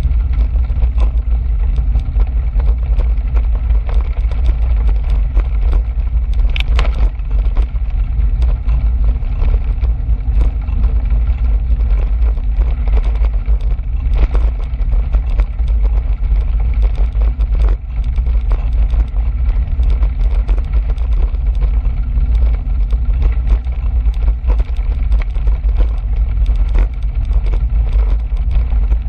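Steady low rumble of wind buffeting the microphone of a camera riding on a moving bicycle, mixed with tyre noise on a gravel trail. A few small clicks and rattles come through, the sharpest about seven seconds in.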